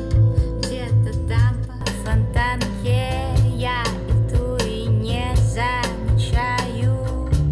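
A song with singing, guitar and a steady bass beat, played through Soviet hi-fi loudspeakers in a listening test: first Amfiton 50AC-022, then Radiotehnika S-90B.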